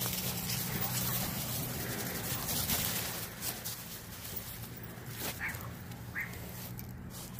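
Shepherd dogs and Renascence Bulldogge puppies roughhousing in dry fallen leaves: paws scuffling and leaves rustling and crunching, with two brief high-pitched dog cries about five and six seconds in.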